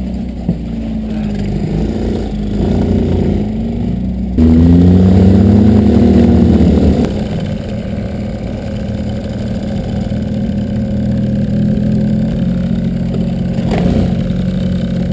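Off-road buggy engine revving as the buggy drives: its pitch rises and falls a couple of times and is loudest from about four to seven seconds in, then it settles into a steadier, lower running note.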